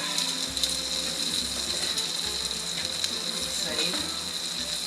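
Wagyu New York strip steak sizzling steadily on a Blackstone flat-top griddle, with faint voices in the background.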